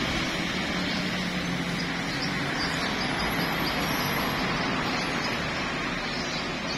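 Steady road traffic noise, with motorbikes and cars passing on a busy street.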